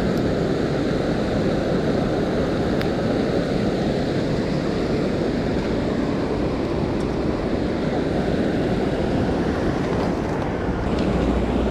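Steady rush of water pouring over a concrete spillway, an even, unbroken noise with no let-up.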